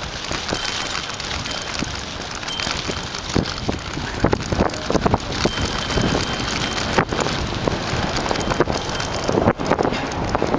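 Mountain bike ridden fast over a bumpy, sandy dirt track: wind rushing over the microphone, with a steady stream of knocks and rattles from the bike jolting over the ground.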